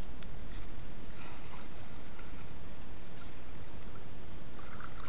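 Steady muffled rush of water picked up by a camera held underwater, with a few faint clicks in the first second.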